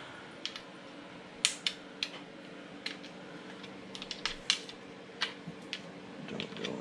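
Small metal parts clicking and tapping against a Yoshimura RS2 exhaust pipe as its mounting hardware is fitted by hand: a dozen or more irregular sharp clicks.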